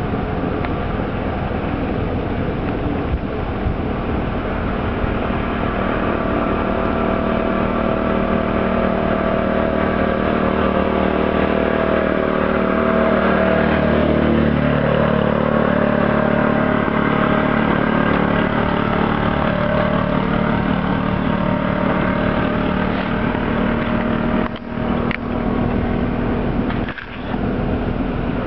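Diesel engine of a 620 hp inland motor cargo ship running with a steady drone as the ship approaches; its tone shifts slightly about halfway through.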